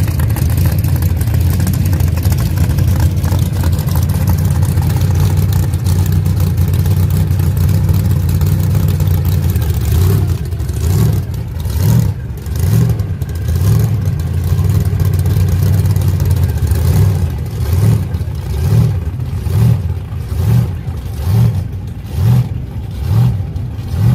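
Drag-race car engines running loud and steady, then from about ten seconds in surging and falling back evenly about once a second.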